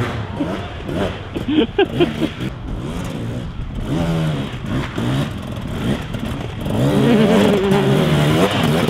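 Enduro dirt bike engine revving up and down in short blips as the bike picks its way over rocks and logs, with a few sharp knocks about a second and a half in. The revs rise and hold loudest near the end as it climbs the rock section.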